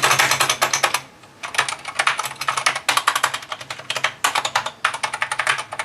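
Typing on an Ajazz AK510 mechanical keyboard with Zorro brown switches: rapid key clacks in bursts of about a second, with short pauses between the bursts.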